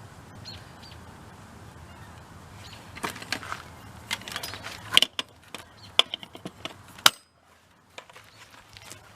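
A run of sharp clicks, knocks and clinks from handling the gasifier's ammo-box fine filter while filling it, bunched from about three to seven seconds in and loudest near the end of that run, after which the sound drops away abruptly.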